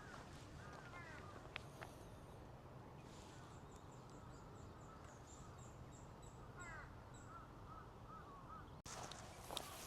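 Crows cawing faintly in short runs of several calls, once near the start and again about two-thirds through, with a rapid series of high thin ticks in between. Near the end the sound drops out for an instant and a runner's footsteps come back in.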